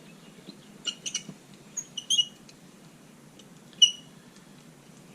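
A few sharp, short metallic clinks and ticks with a brief high ring as a lock is set and clamped in a vise; the loudest comes about four seconds in.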